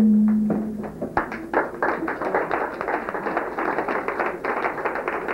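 A small audience applauding, many separate hand claps starting about a second in and running on. Before the claps build, a held note of the clip's soundtrack music fades out.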